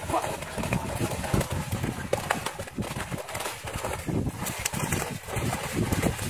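Live fish flopping and slapping inside a hoop-framed cage net hauled onto a muddy lakeshore: irregular thumps and splashes.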